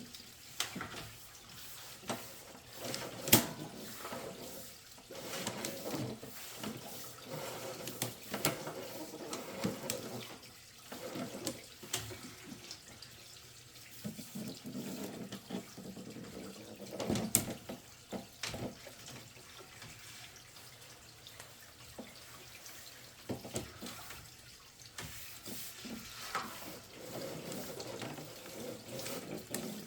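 Water running and trickling through a clay sewer drain line, with a few sharp knocks, the loudest about three seconds in and again just past halfway.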